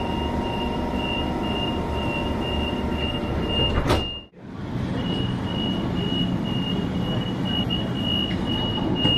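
Sydney double-deck train's sliding passenger doors: warning beeps about twice a second over a steady carriage hum, and the doors shutting with a thud about four seconds in. After a short gap, the same beeping starts again, with another thud near the end.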